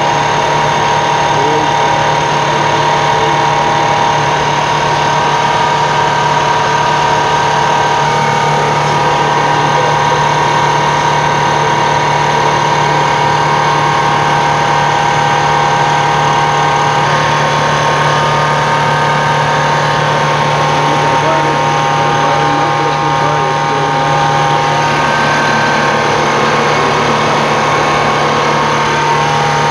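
Bauer Junior II high-pressure breathing-air compressor running steadily with a constant hum, charging an emergency escape breathing device (EEBD) cylinder toward 200 bar.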